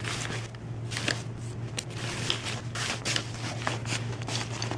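Clothes and a fabric compression sack rustling in irregular bursts as folded clothes are stuffed into the sack and pressed flat by hand. A steady low hum runs underneath.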